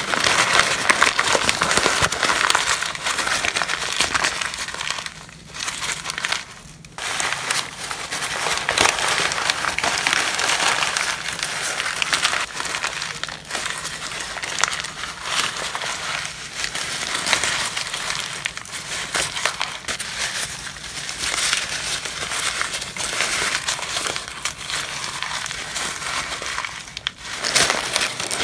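Brown paper being crumpled and rustled in gloved hands: loud, crisp crackling that goes on almost without break, with short pauses about five and seven seconds in and again near the end.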